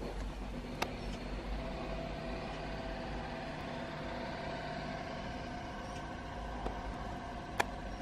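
A steady mechanical hum with a low rumble and a faint held tone, broken by two sharp taps, one about a second in and one near the end.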